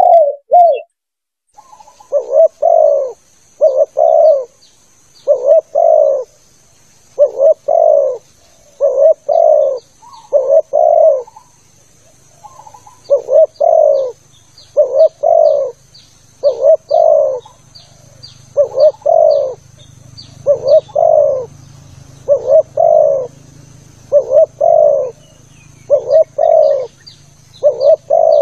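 Spotted dove (tekukur) cooing: a clear two-part coo, repeated about every one and a half to two seconds, with a short break near the middle. This is a lure call for wild spotted doves. A steady thin high whine and faint high chirps run underneath.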